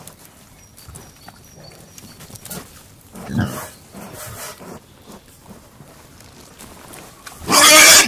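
Pigs grunting and snuffling while feeding, with a stronger grunt about three seconds in and a much louder, short call near the end.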